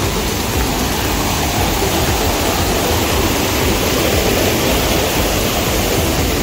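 Rushing water, a loud steady rush with no breaks.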